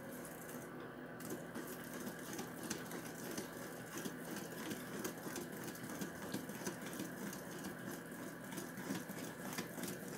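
Wire whisk beating cake batter by hand in a glass bowl: a fast, uneven run of wet ticks and taps as the wires hit the bowl and stir the batter. A steady hum sits underneath.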